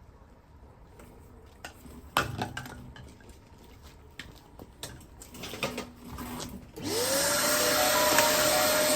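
A few scattered clicks and knocks, then about seven seconds in a vacuum cleaner switches on: its motor whine rises quickly and levels off under a loud, steady rush of air.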